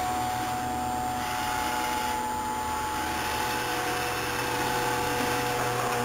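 Robot vacuum cleaner running: a steady motor hum with a constant whine and the hiss of its suction and brushes, unchanging throughout.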